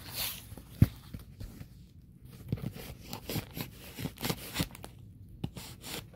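Hands picking and pulling at packing tape on a cardboard box: irregular scratching, crinkling and short tearing sounds, with a sharp knock about a second in.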